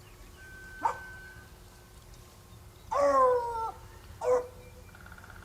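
Wild turkeys calling: a short yelp about a second in, a longer call about three seconds in that falls in pitch, and another short yelp after four seconds.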